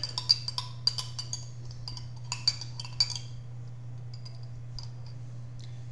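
Metal spoon clinking and scraping against the inside of a small glass baby food jar, scooping out what is left. A quick run of sharp, ringing clinks for about three seconds, then only a few faint taps.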